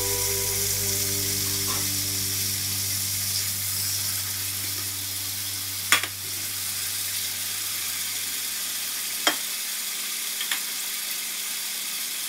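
Boneless chicken thighs sizzling in hot oil and butter in a frying pan, a steady hiss. About halfway through there is one sharp knock as the pan is shifted on the burner, and a couple of lighter clicks come later.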